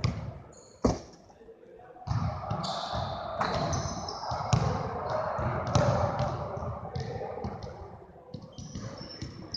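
Basketballs bouncing on a hardwood gym floor: one sharp, loud bounce about a second in, then from about two seconds on a busy run of dribbling from several balls at once.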